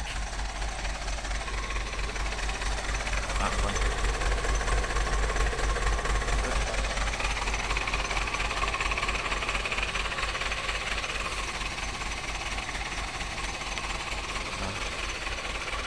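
Truck engine running with a steady low, knocking rumble, swelling a little a few seconds in and easing off later, while the truck sits stuck in soft, rain-soaked ground.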